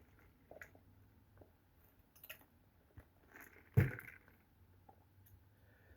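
Faint chewing and mouth noises, a few small scattered clicks, with one louder short thump about four seconds in.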